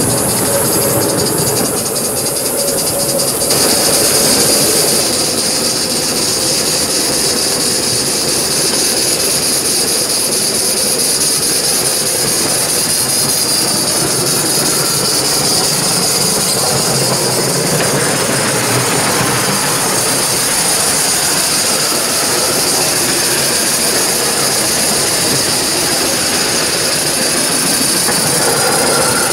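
Accucraft Gauge 1 live-steam Southern Pacific F-4 model locomotive running on the track, a steady hiss of steam mixed with the noise of its wheels on the rails.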